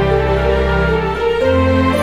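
Background music of sustained chords over a steady bass line, the bass shifting to a new note about one and a half seconds in.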